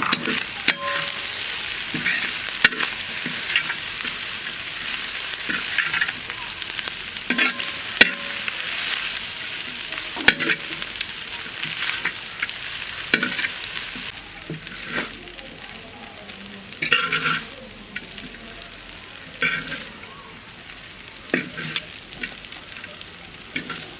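Noodles stir-frying in a hot oiled pan with vegetables and chicken: a steady sizzle with the spatula scraping and clattering against the pan. The sizzle drops away about halfway through, leaving quieter, intermittent stirring scrapes.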